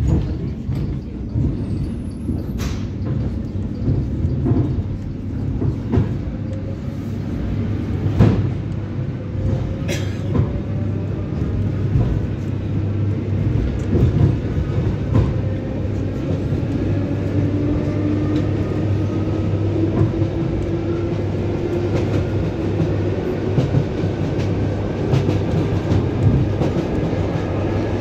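ED9MK electric multiple unit heard from inside a passenger car while it picks up speed. There is a steady rumble with a whine that slowly rises in pitch, and the wheels clack now and then over rail joints.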